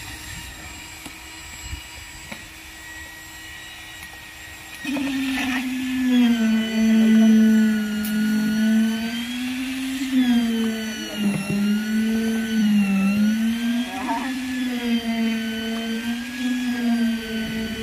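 Concrete needle vibrator running, compacting freshly poured concrete in a reinforced beam form. A faint, slightly higher hum about five seconds in turns into a loud, droning hum whose pitch wavers up and down as the needle is worked through the concrete.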